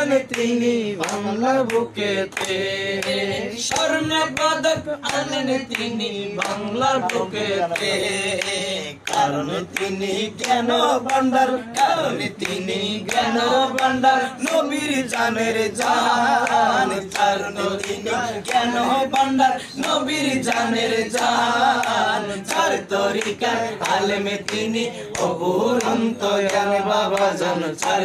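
A man singing a Bengali devotional manqabat in a chant-like melody, drawing out long wavering notes, with no instruments. Sharp hand claps keep a steady beat under the voice.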